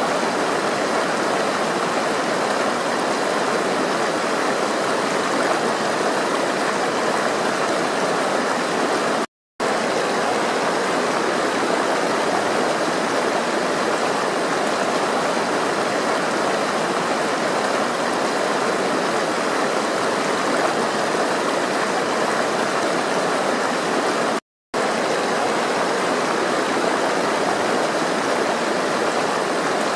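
Flowing water rushing steadily, an even dense hiss. It cuts out to silence twice for a fraction of a second, about nine and a half seconds in and again about twenty-four seconds in.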